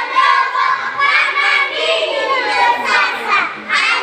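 A group of young schoolchildren chanting a Swahili poem (shairi) together in a sing-song voice.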